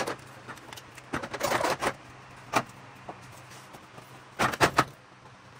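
Knocks and rattles of an NA Mazda Miata's old radiator and its plastic fan shroud being lifted up out of the engine bay: a quick run of knocks a little over a second in, a single sharp knock, and another quick run of knocks near the end.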